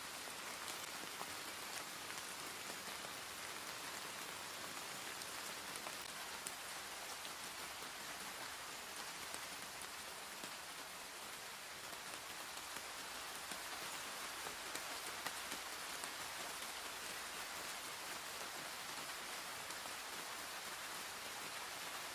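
Steady rain falling, an even hiss with scattered drop ticks and no thunder.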